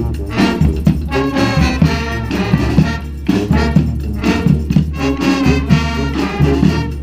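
Street brass band playing an upbeat dance tune with massed horns, including trombones and trumpets.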